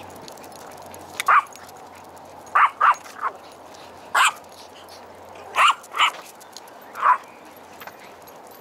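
A dog barking: about eight short, sharp barks at irregular intervals, the last some seven seconds in.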